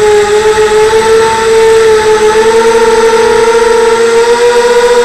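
Mini FPV quadcopter's electric motors and propellers whining, heard from the craft's own camera. The whine is loud and steady, wavering a little in pitch as the throttle changes.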